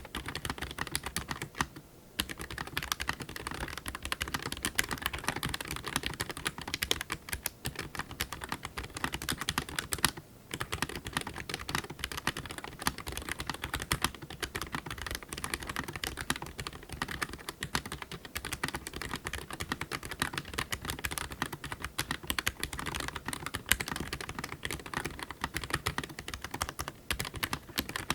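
Fast, continuous typing on an Eweadn MK100 mechanical keyboard with white key switches: a dense run of key clicks, broken by brief pauses about two seconds in and about ten seconds in.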